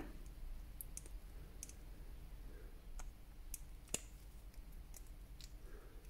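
Faint, scattered light clicks of a small metal spade terminal and needle-nose pliers being worked into a plastic connector housing. The sharpest click comes about four seconds in.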